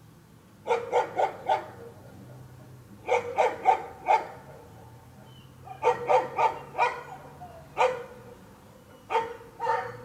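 A dog barking in quick runs of three or four barks, with pauses of a second or two between the runs.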